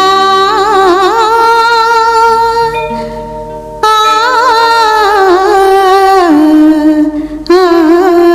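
Opening of a Hindi film song: a sustained melody of long held notes with vibrato, in phrases that fade out about three seconds in and start again just before four seconds, with a brief break near the end.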